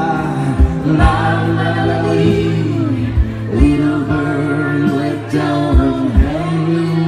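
Live acoustic music: a man and a woman singing long held notes together over sustained low instrumental tones, with a few soft low thumps.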